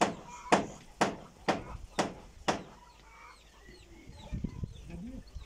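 Hammer blows nailing down a corrugated slate roof sheet: six sharp strikes, about two a second, that stop about halfway through. After them a chicken clucks faintly, with small chirps.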